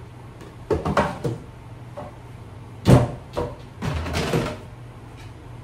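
Hard plastic storage bin bumping and knocking against the shelf and sides of a wooden cabinet as it is pushed in. There is a cluster of knocks about a second in, the loudest knock about three seconds in, and a few softer bumps after it.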